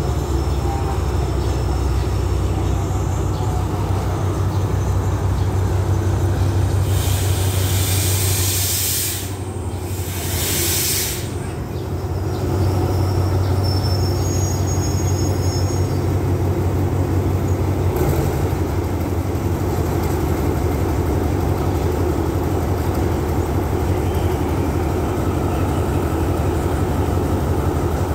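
Alsthom diesel-electric locomotive's engine running with a steady low hum as the train draws in to a stop. Two loud bursts of hissing air from the air brakes come about seven and ten seconds in, with a faint brake squeal a few seconds later.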